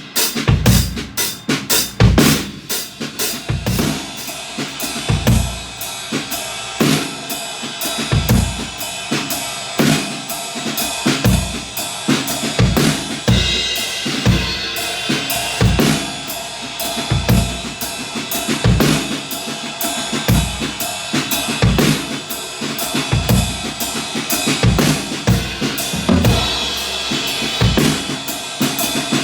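Drum kit played continuously in a groove: bass drum and snare with ghost notes under a steady cymbal ride or hi-hat pattern. Recorded through a phone's microphone.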